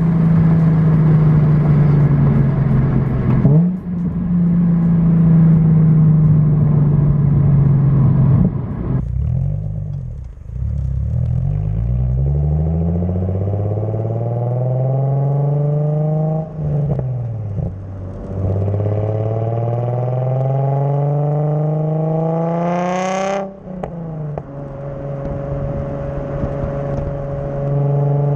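Nissan 370Z NISMO's 3.7-litre V6 running through a titanium Tomei dual-exit exhaust with the catalytic converters still fitted. It cruises steadily at first. After a brief lift about a third of the way in, it makes two pulls with the engine note rising, an upshift between them. Near the end it settles back to a steady cruise.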